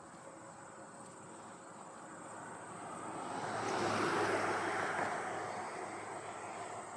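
A car drives past close by, its road and tyre noise swelling to a peak about four seconds in and then fading away. A faint steady high tone runs underneath.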